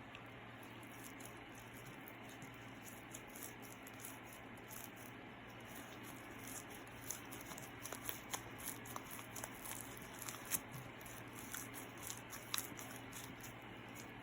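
Slime being squished and kneaded by hand: faint soft sticky clicks and crackles, coming more often from about halfway through.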